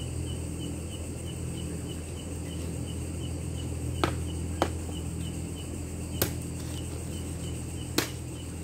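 Cricket chirping steadily, about four short chirps a second, over a low steady hum. Four sharp cracks or knocks stand out, two close together about four seconds in, one about six seconds in and one near the end.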